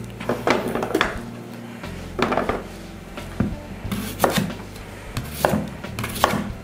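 Chef's knife cutting new potatoes on a wooden cutting board, a series of sharp knocks at uneven intervals, with cut potato pieces dropped into a metal baking tray.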